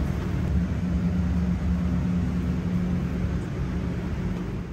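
Steady low mechanical hum and rumble of kitchen machinery, with an even whooshing noise over it.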